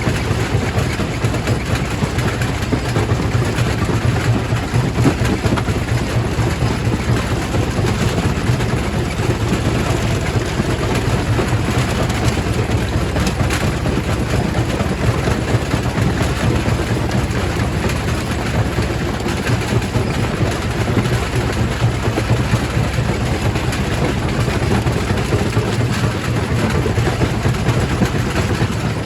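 Quarry primary rock crusher running: a steady heavy mechanical rumble with a dense, continuous clatter of rock being crushed.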